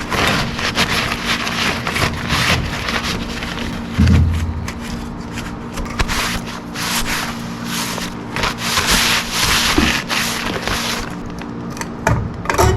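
Irregular rubbing and scraping strokes, with a short heavy thump about four seconds in, over a steady low hum.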